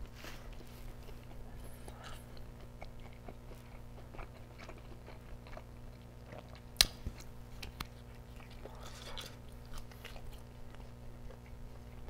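A person chewing a mouthful of microwaved deep-dish pizza, with soft, quiet mouth sounds. There is one sharp click about seven seconds in, over a steady low hum.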